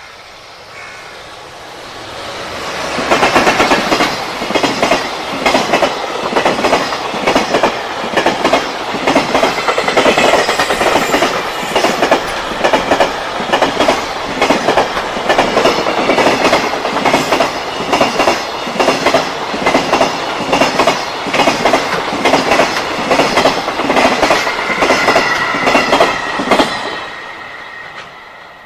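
Freight train passing at speed: the sound builds over about two seconds, then a long, even, rapid clickety-clack of wagon wheels over rail joints runs for over twenty seconds and fades away near the end.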